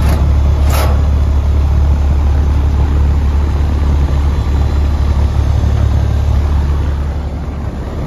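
Outdoor air-conditioning condenser unit running, its compressor and fan making a steady low hum with the rush of air through the coil. A brief sharp noise comes about a second in.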